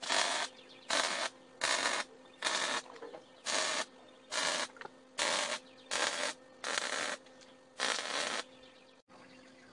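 Arc welding on the steel smoker's firebox in short stitch welds: about ten bursts of arc noise, each under half a second and roughly a second apart. A steady electrical hum runs between them.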